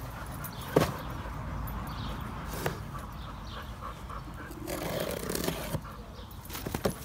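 Cardboard shipping box being handled and opened: a few sharp knocks, and about five seconds in, a second of tearing or scraping as the box is worked open.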